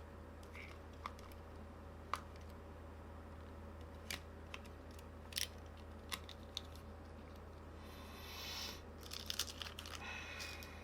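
Faint scattered clicks and taps of small plastic parts as the stock battery is fitted into an opened PS5 DualSense controller, with a brief rustle about eight seconds in and a quick run of clicks and rustling near the end.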